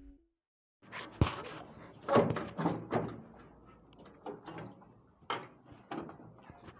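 A sharp knock, then scattered bumps and rustles of things being handled.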